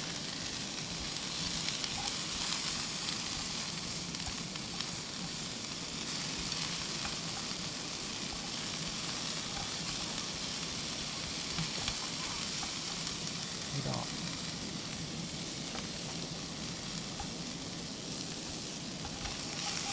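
Vegetables and pork sizzling steadily as they stir-fry in a frying pan over a portable gas stove, with chopsticks stirring and turning them.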